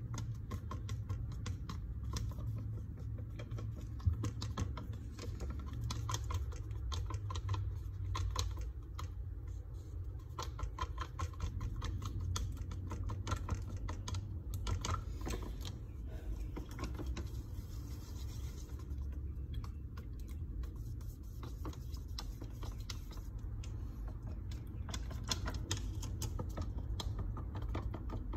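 A wooden stick stirring a thick mixture in a paper cup: rapid, irregular light clicks and scrapes as it knocks against the cup's sides, over a steady low hum.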